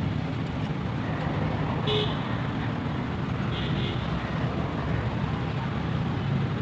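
Steady engine noise with a low rumble, broken by two short high toots about two seconds and three and a half seconds in.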